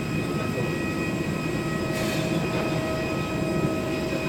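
Steady hum with constant high whining tones from a parked airliner's running air systems, heard at the cabin door during boarding. A brief knock about two seconds in.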